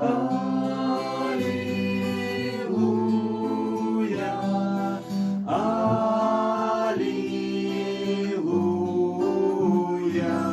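Several voices singing a slow hymn refrain of held "Alleluia" notes to guitar accompaniment.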